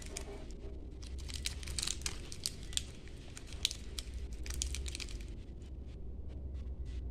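Shiny plastic candy wrappers crinkling in quick, irregular crackles as a hand sorts through a pile of wrapped apple candies and picks some up.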